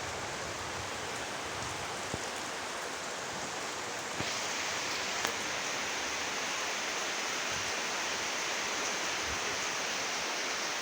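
Rain falling steadily, an even hiss that gets louder and brighter about four seconds in, with a few faint drips ticking.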